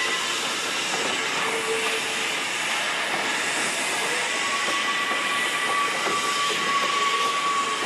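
Freight train of empty Trailer Train flatcars rolling past: a steady rushing of steel wheels on rail. From about four seconds in, a faint high wheel squeal runs over it.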